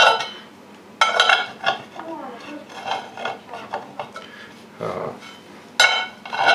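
Detachable cast-iron handle clanking against a cast-iron skillet as it is worked into the pan's handle socket. Sharp metal-on-metal knocks ring briefly at the start, about a second in, and again near the end, with fainter scrapes and clinks in between.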